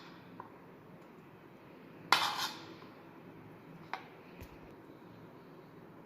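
Kitchen utensils clinking against a dish: a sharp clink about two seconds in, a second one right after, then a few lighter taps.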